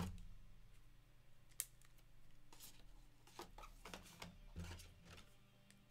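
Faint handling of trading cards and a plastic card holder: scattered soft clicks and rustles, with a sharp click at the very start and another about a second and a half in.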